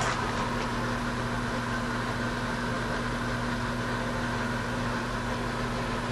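Steady electrical hum of a running machine: a low drone with a fainter, constant high whine above it.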